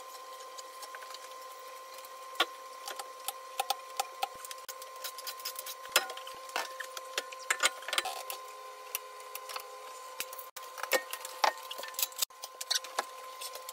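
Irregular metallic clicks and knocks from a car wheel change, as lug nuts, wheel and floor jack are handled, over a steady high hum.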